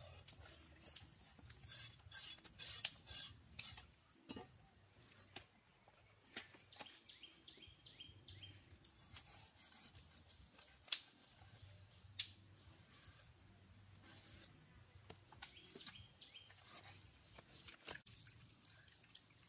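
A large knife scraping and knocking on a big catfish on a wooden board: quick scraping strokes over the first few seconds, then scattered light clicks, with two sharp knocks about eleven and twelve seconds in, the first the loudest. A steady high whine runs underneath until shortly before the end.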